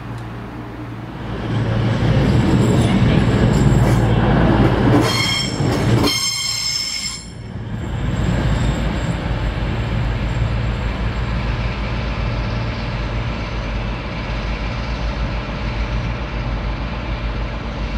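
Diesel trains at a station platform: a train's running noise swells, with a high metallic wheel squeal about five seconds in. After a sudden drop, the underfloor diesel engines of a CrossCountry Voyager unit run steadily.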